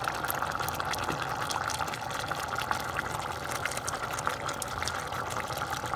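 Chicken pieces in coconut milk bubbling at a full boil in a stainless steel pot: a steady bubbling hiss dotted with many small pops.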